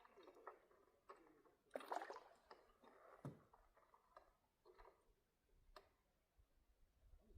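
Faint, scattered small clicks and short soft rustles, the loudest about two seconds in, over an otherwise near-silent background.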